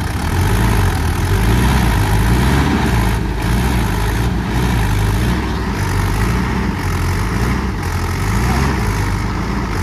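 Mahindra tractor's diesel engine running loud, its pitch rising and falling repeatedly as the throttle works.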